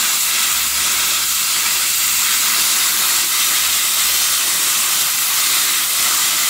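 Hot high-pressure water jets from a four-nozzle pressure-washer lance blasting a steel wire rope: a steady, loud hiss with steam.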